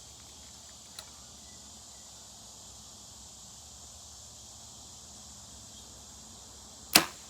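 Crickets and other insects keep up a steady high buzz. Near the end comes a single sharp, loud crack from an archery shot at a foam 3D target, an arrow that lands touching another arrow already in the target.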